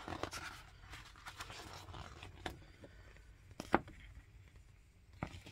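Paper pages of a record booklet being handled and turned: soft rustling with a few short sharp clicks, the loudest about two-thirds of the way through.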